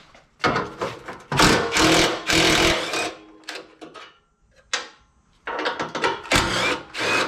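Loud, irregular bursts of tool noise with short stops between them, as work begins on the car's body.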